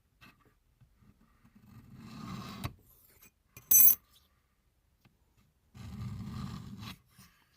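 A height gauge slid across a granite surface plate, its scriber scratching lines along a Sharpie-coated knife blade: two scraping strokes about a second long each, with a sharp metallic clink between them.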